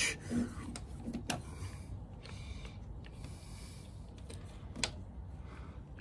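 Small clicks and scrapes of a screwdriver and wires being worked into a plastic ceiling rose's terminal block, with soft rustling between them; two sharper clicks, about a second in and near five seconds.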